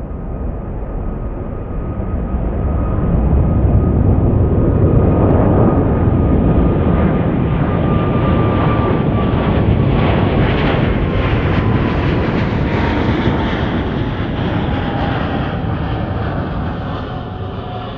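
Thai Airways Boeing 777 twin-engine jet climbing out after takeoff and passing overhead: a loud jet roar that swells, holds, and begins to fade near the end. A whining engine tone slides down in pitch as the aircraft goes past, and the roar crackles at its loudest.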